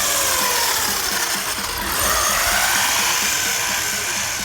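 Brushed electric motor of a Wltoys 12423 1/12-scale RC truck whining as it is driven, its pitch falling and then rising again with the throttle, over a steady hiss.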